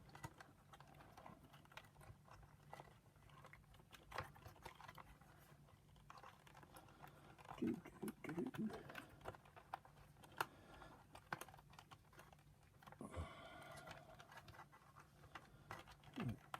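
Scattered light clicks and taps of small plastic vacuum power-nozzle parts being handled and fitted, with a faint hum underneath.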